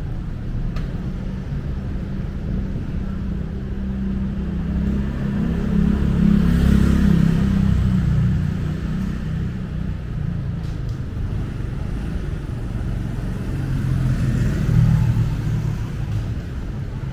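Road traffic: vehicle engines running with a low rumble, swelling as vehicles pass about six seconds in and again near the end.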